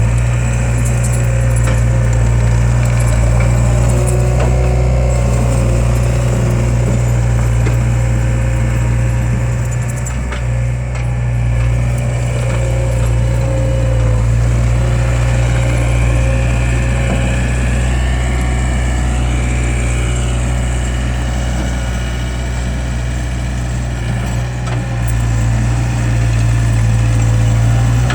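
Skid steer loader engine running steadily, with a thin higher whine that wavers up and down briefly about two-thirds of the way through.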